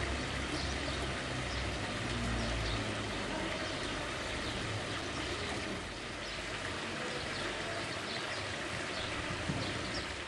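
Water pouring steadily from the spouts of a stone public fountain and splashing into its basin, with a low rumble in the first few seconds.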